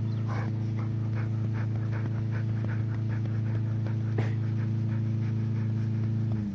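Dog panting quickly, about three breaths a second, over a steady low motor hum that winds down in pitch and cuts out near the end.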